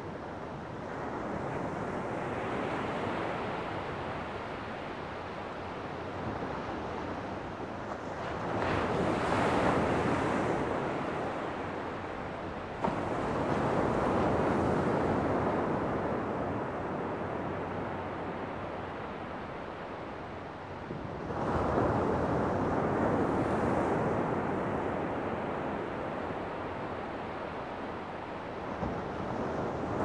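Sea waves breaking and washing up a beach in winter, the surf swelling and fading in several surges a few seconds apart. The loudest breakers come about nine seconds in and again about twenty-one seconds in.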